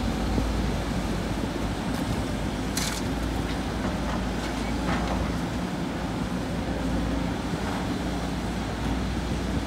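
Sany hydraulic crawler excavator's diesel engine running steadily under load as it swings a bucket of sand over a dump truck and empties it into the bed, with a brief hiss about three seconds in.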